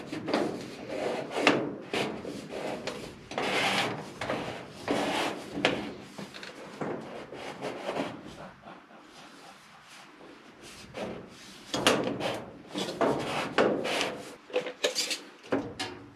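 Round sheet-metal bypass duct and elbow sections scraping and rattling as they are twisted and pushed together onto their collars. The scraping comes in irregular bursts, with a quieter pause about halfway through.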